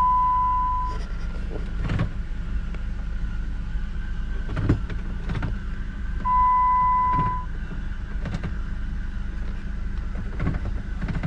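Jeep Wrangler JK engine idling with a steady low hum. Two long steady electronic beeps sound, one ending about a second in and another about six seconds in, with a few scattered clicks and knocks in between.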